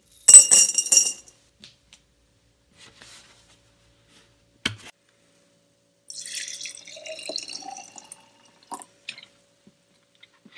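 A handful of steel nails dropped into an empty glass mason jar, clattering and ringing against the glass for about a second. After a single click, clear liquid is poured from a plastic jug over the nails for about two seconds, gurgling into the jar.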